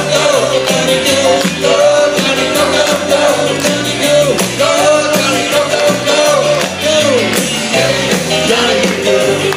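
Live band playing 1950s-style rock and roll, with a bass line stepping note by note under a bending lead melody.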